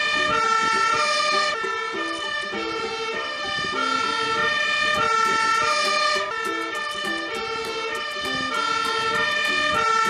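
Fire engine siren sounding, stepping back and forth between pitches in a repeating pattern, from a MAN aerial-ladder fire truck pulling out on a call.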